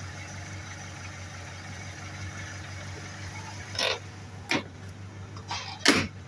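VAZ classic four-cylinder engine idling evenly after a camshaft and camshaft bed replacement, with no camshaft knock heard. Three sharp knocks come in the second half, the last one loudest.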